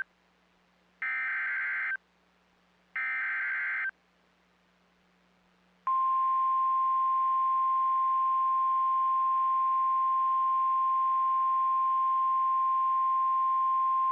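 NOAA Weather Radio Emergency Alert System activation: two SAME digital header data bursts, each a harsh electronic screech about a second long and two seconds apart, then after a short pause the steady single-pitch warning alarm tone starts about six seconds in and holds. The header bursts carry the encoded alert that switches on weather-alert receivers, and the tone announces the severe thunderstorm warning that follows.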